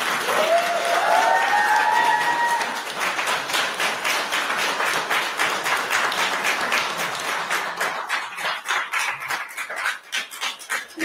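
A crowd in a meeting room applauding, dense at first and thinning to scattered claps near the end. In the first couple of seconds someone in the crowd lets out a whoop that rises in pitch.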